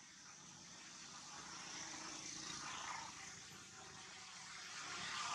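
Faint engine noise from a distant vehicle or aircraft, growing louder toward the middle, easing a little, then swelling again near the end.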